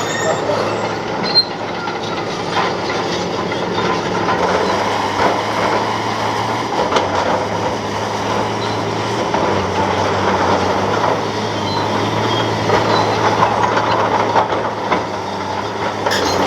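Tracked bulldozer at work: its diesel engine runs steadily while the steel tracks clank and squeal over crushed lava rock.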